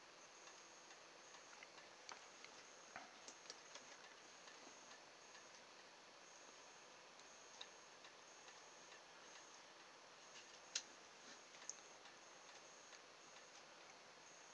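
Near silence: a faint steady hiss with scattered small, irregular clicks and taps as wires and a soldering iron are handled against the plastic drill housing, one sharper click about two-thirds in.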